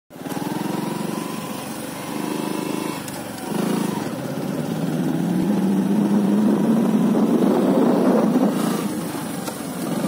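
A motor vehicle engine running, its noise swelling and loudest from about five seconds in.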